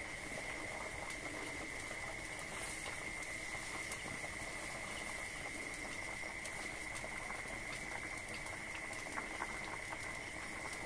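Fish curry broth boiling in a wok over a wood fire, bubbling with scattered small pops and crackles, over a faint steady high whine.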